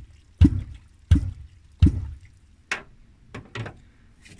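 A catfish clonk (kvok) being struck into the water in a series of about six short, sharp strokes, roughly one every two-thirds of a second, the last ones weaker. It is being knocked to draw fish up off the bottom.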